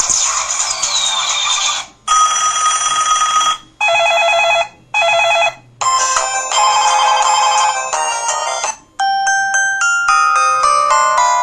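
LG-KP3500 mobile phone playing its built-in ringtones and sound effects one after another through its small, thin-sounding speaker. There are short clips with brief silent gaps between them: a held electronic tone, two short beeps, then two chiming electronic melodies.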